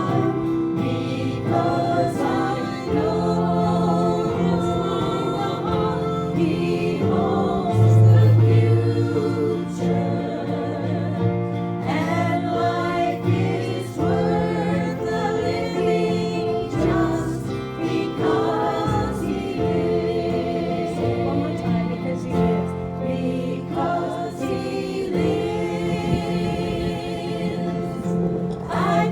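A group of voices singing a gospel hymn in harmony, with long held notes.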